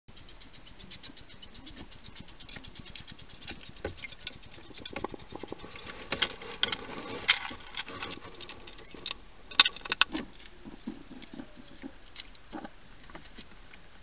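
European hedgehog eating: a rapid, irregular run of crunching and wet smacking clicks, busiest in the middle, with one sharper, louder click about nine and a half seconds in.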